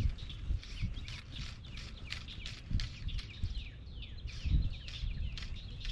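Birds chirping continually: many short, quick chirps, each sliding down in pitch, repeated through the whole stretch. A few low thumps come through underneath, about a third of the way in and again past the middle.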